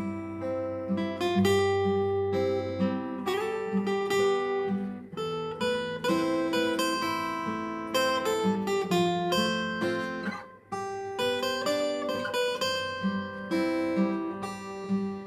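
Acoustic guitar playing an instrumental break of a ballad, strummed chords under a picked melody line. It drops out briefly about ten seconds in before picking up again.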